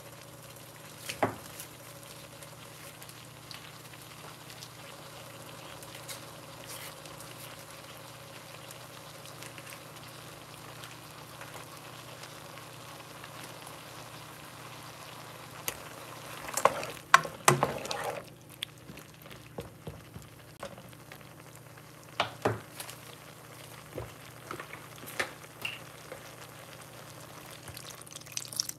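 Penne sizzling lightly in a nonstick frying pan, with a steady low hum underneath. A little over halfway through comes a short burst of clattering knocks, after which the sizzle thins and a few scattered clicks follow. Milk starts pouring into the pan at the very end.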